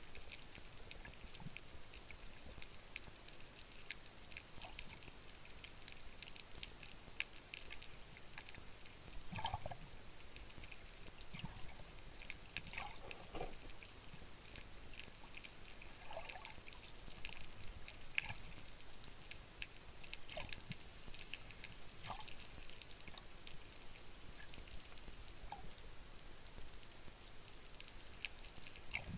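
Underwater ambience: a steady hiss with scattered clicks and crackles and a few short gurgles of water and bubbles.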